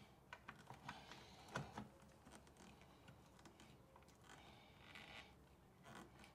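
Near silence with faint small clicks and light scraping as a controller mounting bolt is started by hand among the wiring.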